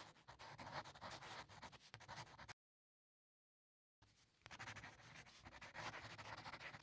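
Faint scratching of a pen writing on paper, in two stretches with a silent gap of about a second and a half between them.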